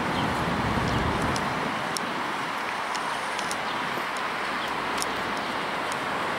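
Steady road traffic noise from a busy street. A low rumble of a passing vehicle fades out in the first second or two.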